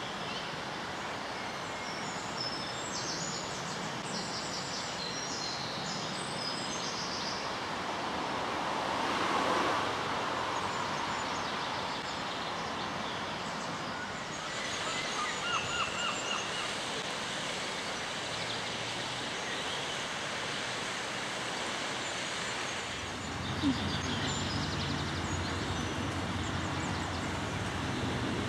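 Outdoor ambience: a steady noise bed with birds chirping now and then. A low mechanical hum comes in near the end.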